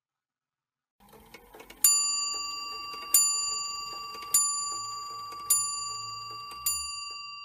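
A clock bell striking five times, a little over a second apart, each stroke ringing on and fading slowly; a few faint clicks come just before the first stroke.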